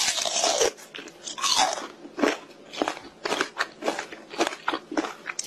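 Crunching bites and chewing, with a long crunch at the start and another about a second and a half in, then shorter crunches every half second or so, as a hard plastic motorcycle helmet is bitten into.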